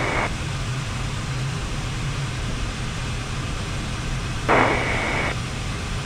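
Steady cockpit noise of an L-39 Albatros climbing after takeoff: the hum of its Ivchenko AI-25TL turbofan and the rush of air. There are two short bursts of hiss over the headset intercom, one right at the start and one about four and a half seconds in.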